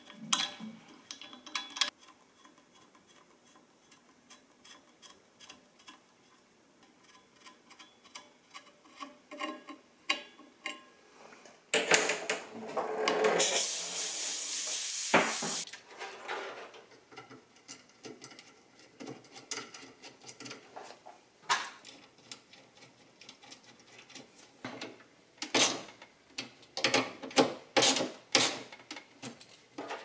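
Workshop handling sounds: a steel tap turning in a soft aluminum bracket to cut an M6 thread, then small metal clicks and knocks as parts are fitted. About twelve seconds in comes a loud, steady rushing noise that lasts about three seconds.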